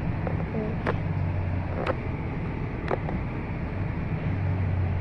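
Steady road and engine hum of a moving car, heard from inside, with a sharp tick about once a second.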